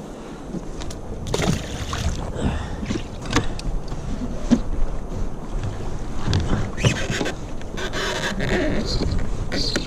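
Wind on the microphone and water moving around a plastic sit-on-top kayak, with scattered clicks, knocks and rustles as hands handle fishing line on the deck.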